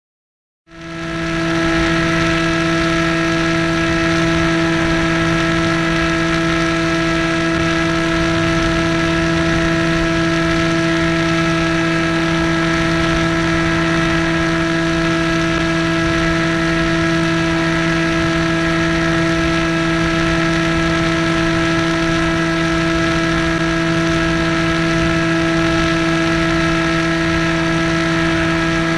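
Electric motor and propeller of an Easystar 2 model plane running at steady power in a climb: an even buzzing hum over a rush of air. It cuts in from silence just under a second in.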